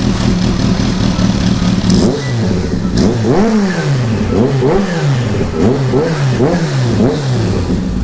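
Kawasaki Z H2's supercharged inline-four idling through an aftermarket Alpha slip-on canister, with a fat exhaust note. About two seconds in it is blipped repeatedly, each rev rising quickly and falling back, then it settles to idle near the end.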